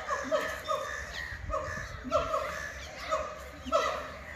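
Animals calling in a rapid series of short, slightly falling calls, several a second, in runs with brief pauses.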